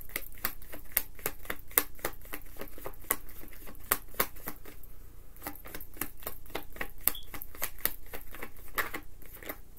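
Tarot deck being shuffled by hand: a quick, uneven run of light card clicks and slaps, several a second.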